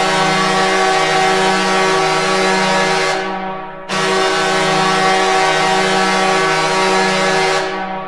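Detroit Red Wings goal horn sounding in long, steady blasts of one low pitch. The first blast tails off after about three seconds, a new blast starts about four seconds in, and it fades again near the end.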